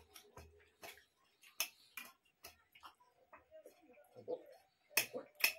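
Eating sounds: irregular wet clicks and smacks of people chewing rice and chicken curry eaten by hand from steel plates, with the loudest clicks near the end.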